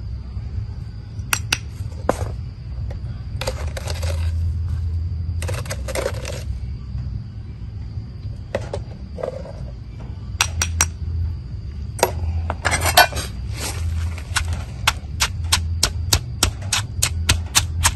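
Stone pestle pounding in a stone mortar: a run of sharp knocks, about four a second, over the last few seconds. Before it, scattered clicks and short scrapes of a spoon against the stone bowl, under a steady low hum.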